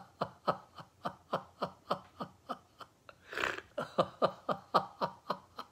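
A man laughing on cue in an even run of short 'ha-ha' pulses, about four a second, as a laughter-yoga exercise. About three seconds in he takes a breath, then laughs on in the same rhythm until near the end.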